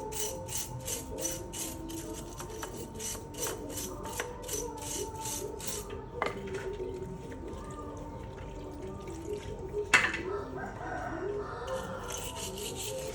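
Rhythmic scraping strokes, about four or five a second, that stop about six seconds in and start again near the end, with a sharp knock about ten seconds in.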